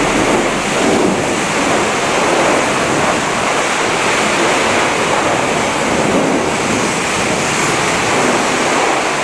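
High-pressure washer jet spraying water over a semi-trailer's steel chassis frame: a loud, steady hiss of spray.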